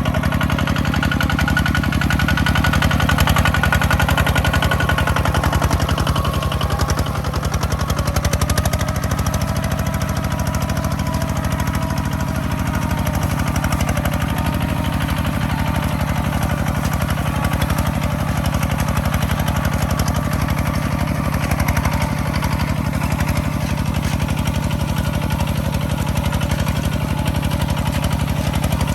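A farm machine's engine running steadily at an even speed, with faint wavering whines above the engine note.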